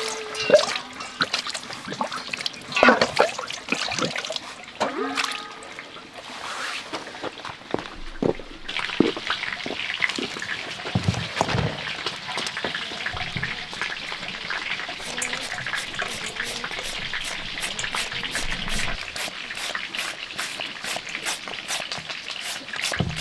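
Water running in a steady trickling stream, joined about a third of the way in; before that, knocks and clatter of things being handled.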